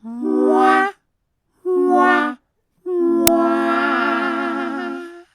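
A voice singing three held notes, two short and then a long one that wavers in pitch, with a sharp click during the last note.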